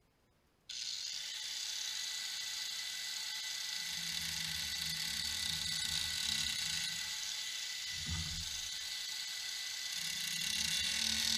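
Corded angle grinder with an abrasive disc starts about a second in and runs with a steady high whine, working against an oak wine barrel. A lower grinding sound comes and goes as the disc bears on the wood.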